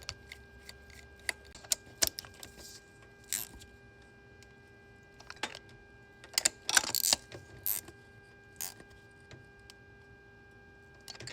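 Scattered metallic clinks and clicks of hand tools working down a spark plug well, threading a spark plug into the engine's cylinder head, with a small flurry of clinks about two-thirds of the way in. A faint steady hum lies underneath.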